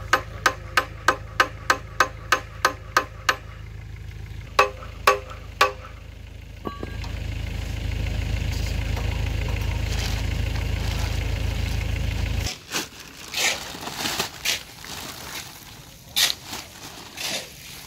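Hand hammer striking metal at the steel packing strap of a crated Soosan hydraulic breaker: about three ringing blows a second for three seconds, then three more blows, over a steady low hum. Then, after a cut, plastic stretch wrap crinkles in irregular bursts as it is torn off the breaker.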